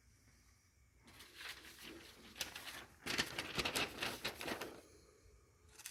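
A small whittling knife slicing through a sheet of paper as a sharpness test: a papery, rasping cut twice, about two seconds each, the second louder, with a slightly grabby catch typical of the first cut.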